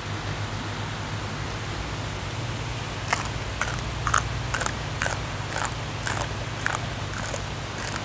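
Steady rush of a small waterfall pouring over a weir. From about three seconds in, crisp crunching comes roughly twice a second as a raw green vegetable stalk is bitten and chewed.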